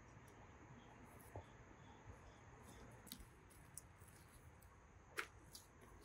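Near silence, with a few faint clicks from handling Steadicam parts and cables, the sharpest about five seconds in.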